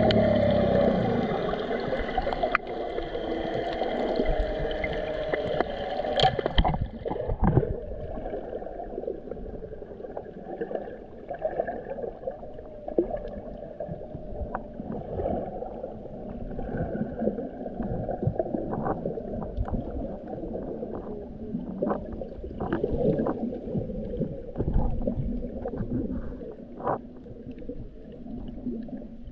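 Underwater sound as picked up by a submerged camera: a steady motor hum that stops about seven seconds in. After it comes the muffled low sloshing and rumbling of water moving around the camera, with scattered sharp clicks and pops.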